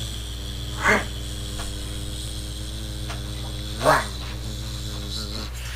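Two short snoring snorts about three seconds apart from a person lying in bed, over a steady low hum.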